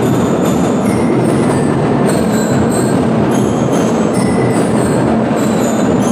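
School drum and lyre corps playing: a dense, steady wash of marching drums, with short high ringing notes from the bell lyres cutting through.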